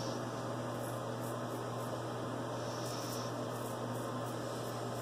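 A steady low hum and hiss, with faint short scratchy strokes of a vintage Frederick Reynolds straight razor scraping lathered stubble on the chin.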